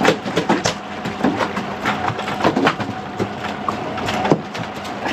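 Boat engine running steadily at idle, with scattered clicks and knocks on top, the sharpest about four seconds in.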